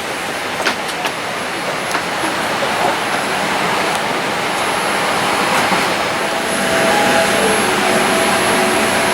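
Steady rushing hiss of a Boeing 787-8 cabin's ventilation air while the aircraft stands at the gate, with a few faint clicks.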